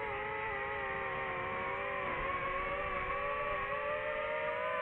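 DJI FPV drone's motors and propellers whining at a fairly steady pitch while cruising, dipping slightly and creeping back up.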